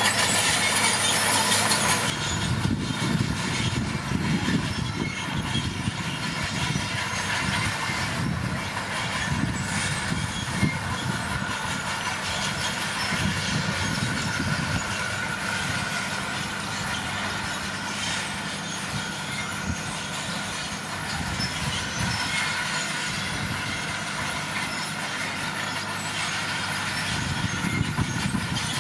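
Komatsu D41P crawler dozer at work: its diesel engine running with a continuous clatter from the steel tracks. The sound changes abruptly about two seconds in, when a steady engine hum and hiss give way to mostly clattering and rumbling.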